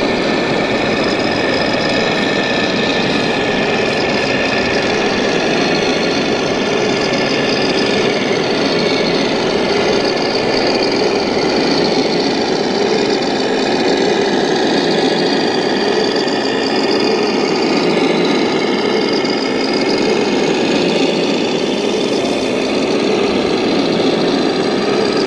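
Diesel-engine sounds from the sound modules of 1/14-scale RC trucks and construction machines, running steadily over a constant din.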